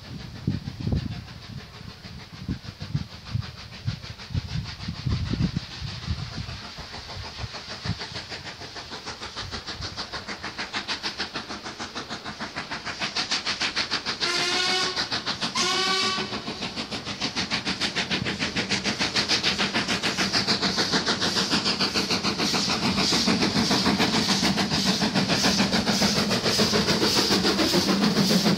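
Ivatt Class 2MT steam tank locomotive No. 41241 working toward and past with its coaches. Its exhaust beats grow steadily louder as it nears, and two short blasts on its whistle sound about halfway through.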